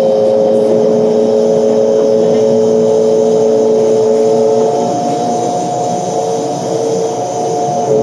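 2012 New Flyer C40LF compressed-natural-gas city bus heard from inside the cabin while under way: engine and drivetrain running with a steady whine of several tones. About five seconds in a higher tone joins and the sound eases a little.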